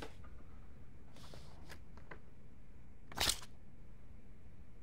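A stiff restaurant menu being picked up and handled: a short rustling scrape about three seconds in, after a few faint clicks, over a low steady room hum.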